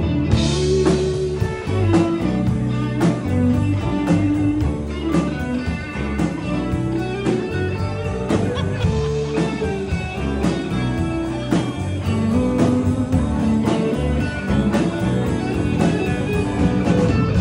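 Live band playing: electric guitar over bass and drums, with a steady beat of drum hits and no singing.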